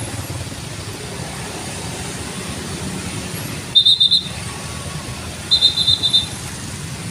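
Steady rumble of road traffic passing a level crossing. About 4 s in and again about 5.5 s in comes a short burst of rapid, high-pitched chirping beeps, each burst lasting under a second.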